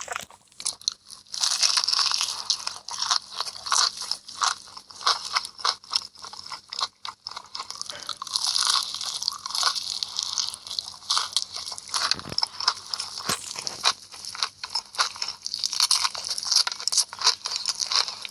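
Close-miked crunchy eating: repeated crisp bites and chewing, crackling without let-up apart from a few brief pauses.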